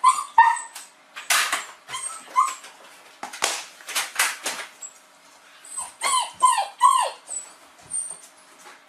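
A dog whining and crying in short, high whimpers that fall in pitch, in clusters near the start and about six seconds in, with a few loud breathy bursts between them. It is the excited, distressed crying of a dog greeting its owner after a long separation.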